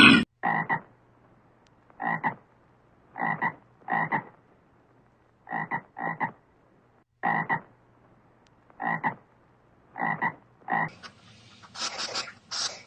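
An animal giving short croaking calls, about a dozen, several in quick pairs, with pauses of about a second between them.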